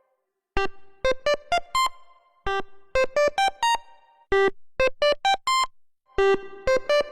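Waldorf Pulse 2 monophonic analog synthesizer playing a short, plucky keyboard-like preset. After about half a second of silence it plays quick staccato notes in a five-note phrase that repeats about every two seconds.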